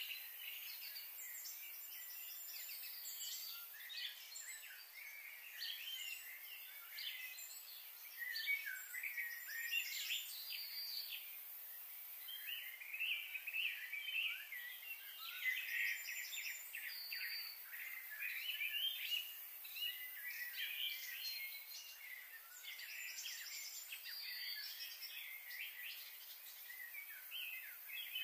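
Many small birds chirping and twittering, their short calls overlapping without a break, over a faint steady high hiss.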